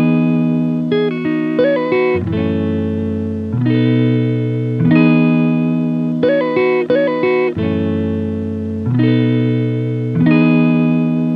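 Background music: a guitar playing sustained chords with short picked notes, in a phrase that repeats about every five seconds.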